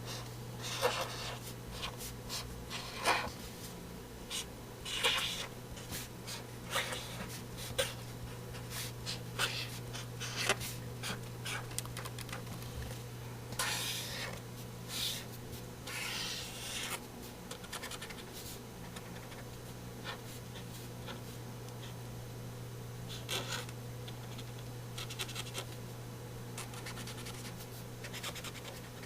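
Irregular short scratching strokes, a few a second in the first two-thirds and sparser near the end, over a steady low electrical hum.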